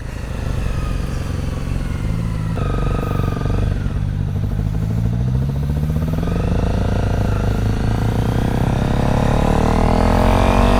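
Honda CRF250L dual-sport's single-cylinder engine pulling under way, with a gear change about two and a half seconds in. It then revs up steadily through the rest.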